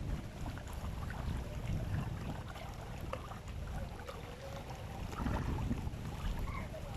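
Wind buffeting the microphone outdoors: an uneven low rumble, with faint scattered ticks and small sounds above it.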